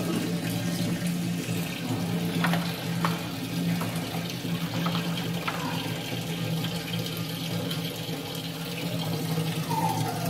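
Liquid running and splashing steadily over a low steady hum, with a few light knocks.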